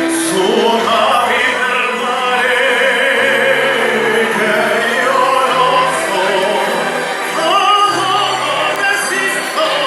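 A song with singing over held bass notes that change every second or two.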